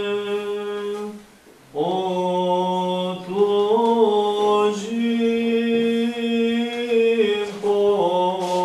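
Unaccompanied Orthodox liturgical chant, the voices holding long, steady notes. It breaks off briefly for a breath about a second in.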